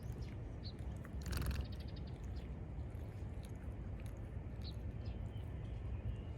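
Outdoor ambience: a steady low rumble with faint, short bird chirps scattered throughout, and a brief rapid rattle of clicks about a second in.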